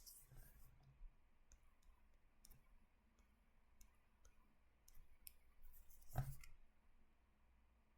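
Faint, scattered clicks and taps of drawing during a pause, nine or so at uneven intervals, with one louder knock about six seconds in, over near-silent room tone.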